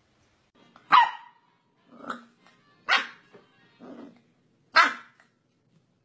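Corgi puppy barking: three sharp barks about two seconds apart, with quieter, lower growls between them.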